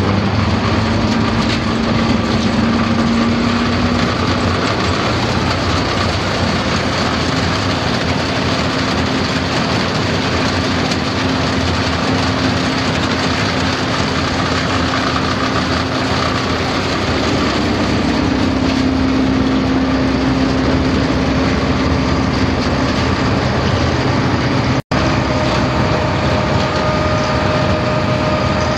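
HayBuster Big Bite H1000 tub grinder and the tractor driving it through the PTO, running steadily with a constant machinery hum that shifts slightly in pitch now and then. A brief cut about 25 seconds in, after which a higher steady whine is added.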